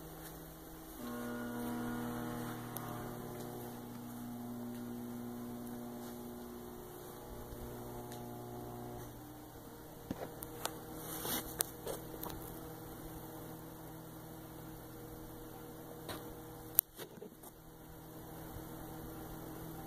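Steady low electrical hum made of several held pitches, starting about a second in and fading somewhat after the first several seconds. A few faint clicks and knocks come later on.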